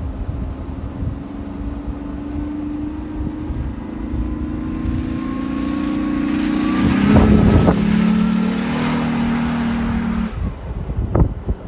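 Jeep Wrangler engine pulling steadily, its note creeping up and then dropping about two-thirds of the way in. Over the middle stretch a loud rush of water and mud spray covers it for about five seconds and then cuts off. Wind buffets the microphone throughout.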